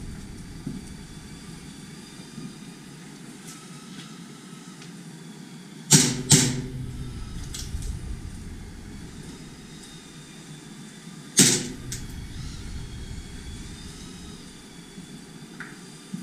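Airsoft gun firing: a quick pair of sharp shots about six seconds in, then a single shot about five seconds later.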